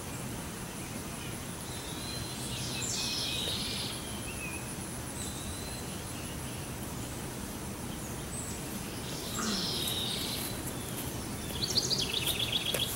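Small birds chirping and calling over steady background noise, with a quick trill of rapidly repeated notes near the end.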